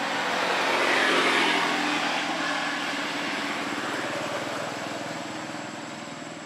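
Engine noise of something going past: a broad rush with a low hum, loudest about a second in, then slowly fading.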